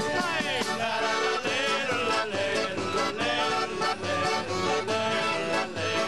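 Live folk music from a strolling trio: a piano accordion carries the tune over strummed acoustic guitar and a shaken tambourine, with a man singing.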